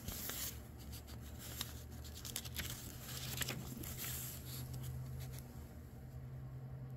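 Paper pages of an old book rustling and crinkling as they are handled and a page is turned, the crackles dying away after about five seconds, over a steady low hum.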